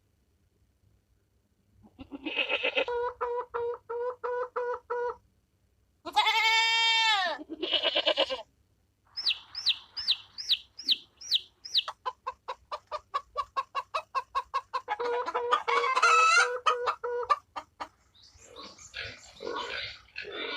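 Chickens: hens clucking in quick repeated pulses, a rooster crowing once about six seconds in, then a run of six quick high rising chirps and more fast clucking. Near the end a rougher, noisier animal sound begins.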